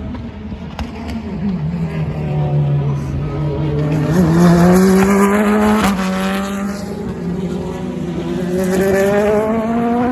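Race car engine accelerating on track. Its pitch climbs, drops sharply at a gear change about six seconds in, then climbs again near the end.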